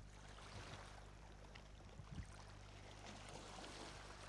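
Near silence: faint outdoor ambience with a low steady hum and a few soft taps.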